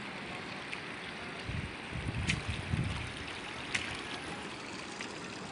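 Steady rushing of running floodwater, with a few low rumbling bumps a couple of seconds in.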